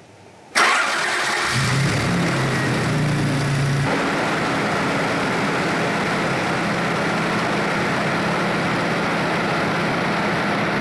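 Toyota 3VZ-E 3.0 V6 engine starting about half a second in and running. It idles a little faster at first, then settles to a steady, lower idle about four seconds in.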